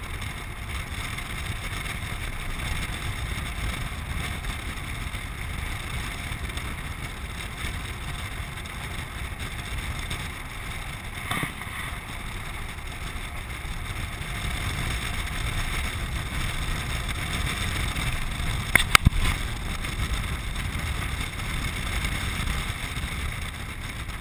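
Steady rush of wind and low rumble from a land sailer running across a dry lake bed, heard from a camera mounted on the craft. A light knock about halfway through and a quick cluster of sharp knocks about three-quarters through, the loudest moment.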